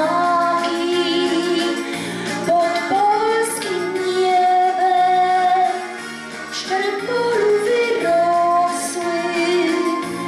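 A woman singing a song into a microphone over musical accompaniment, holding a long note for a couple of seconds about four seconds in.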